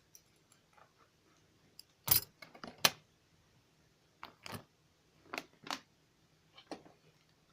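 Butterfly knife being handled: scattered sharp metal clicks at uneven intervals, the loudest two about two and three seconds in.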